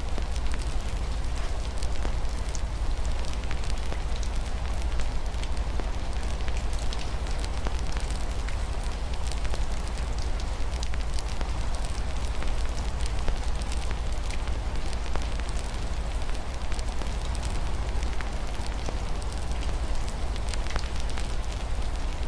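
Wood fire crackling in a fireplace, with many small irregular pops, over a steady hiss of rain on a window and a low rumble.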